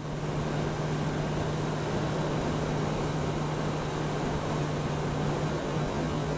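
Motorcycle at steady road speed: continuous wind rush over the microphone with a steady low engine drone underneath.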